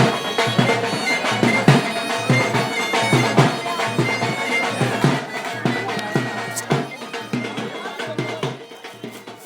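Live Indian folk music: a droning reed wind instrument plays a melody over a steady drum beat, fading away over the last few seconds.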